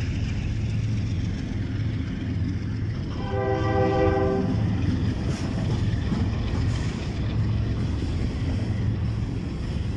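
Diesel-electric freight locomotives rumbling steadily as they pass close by. A train horn gives one short blast of about a second and a half, a little over three seconds in. Near the end the locomotives give way to freight cars rolling past.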